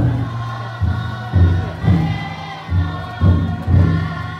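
Large drum inside a futon daiko festival float beaten in heavy, repeated strokes about every half second, under the rhythmic massed chanting of the float's bearers.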